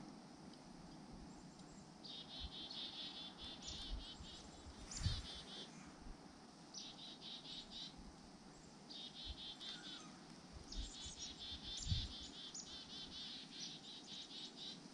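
Bouts of rapid, high-pitched trilling chirps, likely from small birds near the feeder, coming every second or two. Two dull low thumps stand out about five and twelve seconds in.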